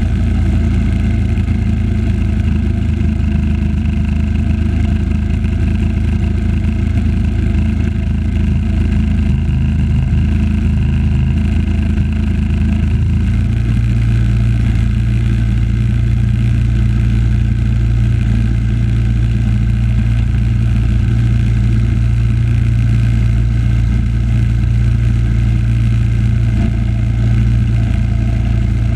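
Engine of a 1976 Simplicity running steadily under load, its note stepping up once about halfway through and then holding.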